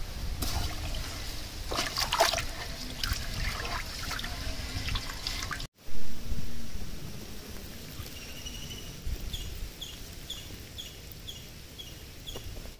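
Raw rice being washed by hand in an aluminium pot of water: splashing and swishing of water and grains. About halfway comes a loud knock, then the cloudy rinse water trickles as the pot is tipped out, under a repeated high chirp about twice a second.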